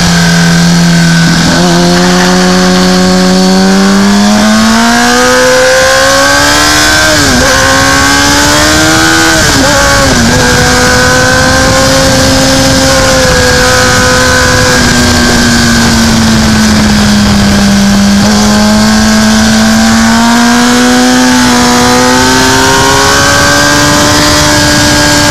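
Racing motorcycle engine heard from an onboard camera, accelerating hard about a second and a half in, with two sharp upshifts about seven and ten seconds in. It then runs at high revs, the pitch sagging slowly and climbing again through a long bend, over a constant rush of wind and road noise.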